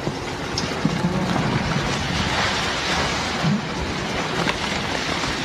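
Steady rumbling noise of a building being demolished, with a few scattered knocks and crashes.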